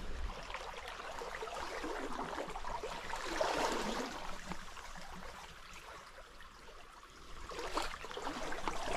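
Creek water running high and rushing steadily, swelling louder about three seconds in and again near the end.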